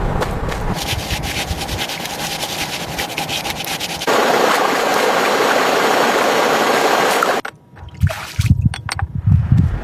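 Water running and splashing, growing louder and fuller about four seconds in, then cutting off abruptly; a few dull low thumps follow near the end.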